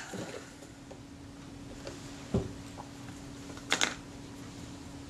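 Small handling sounds of lens-cleaning work on a bench: a few light clicks, one sharp knock a little over two seconds in and a brief scratchy rub near four seconds, over a steady faint hum.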